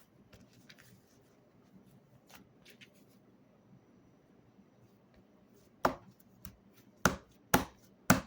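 Slime being played with by hand: faint soft clicks, then four loud sharp snaps in the last two and a half seconds, with a smaller one between the first two.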